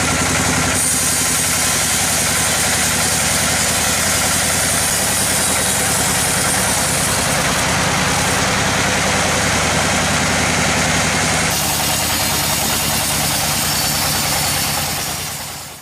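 Sawmill machinery running: a loud, steady engine drone under dense mechanical noise. The sound changes abruptly about a second in and again near the end, then fades out.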